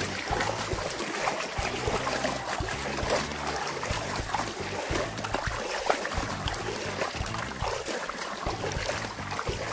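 Water sloshing and swishing in a small plastic toy pool as a doll is moved about under the surface, a steady irregular splashy patter.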